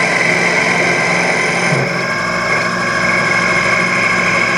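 Small benchtop lathe running with a steady motor whine while the cutter takes a light pass to turn down a cue-shaft tenon for a ferrule; the higher hiss of the cut drops away about two seconds in.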